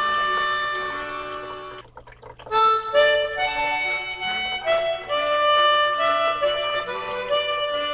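Background music: a melody of held, reedy notes, like a harmonica or accordion, that dips almost to nothing about two seconds in and then carries on.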